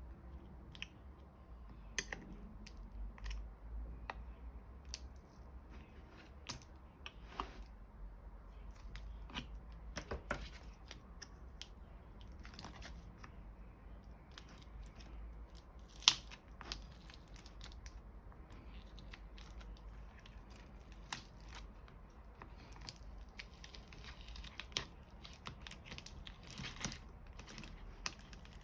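Scattered clicks, scrapes and crinkling as a handheld car diagnostic scanner is worked on by hand during a battery replacement, with one sharp click about sixteen seconds in.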